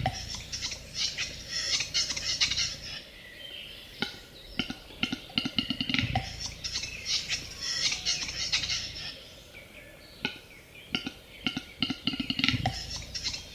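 Male western capercaillie's display song: runs of dry clicks that speed up and end in a low pop, followed by a high, scratchy whetting phrase. The phrase repeats about every six seconds.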